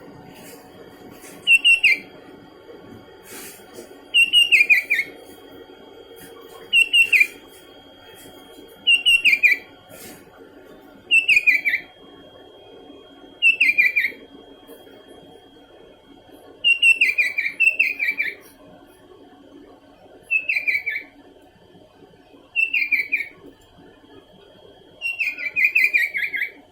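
Sooty-headed bulbul (kutilang) calling over and over: short phrases of quick, falling whistled notes, repeated roughly every two seconds.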